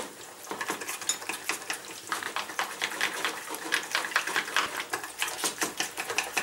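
Wire whisk beating a thickening orange sauce in a small stainless-steel saucepan, the wires clicking and scraping against the pan in a quick, uneven run.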